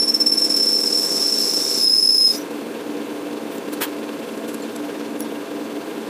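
Metal lathe running with a steady low hum while a small round-nose cutting tool squeals with a high, steady whistle as it cuts the clutch hub, cutting off abruptly about two seconds in. A single sharp tick follows a little later.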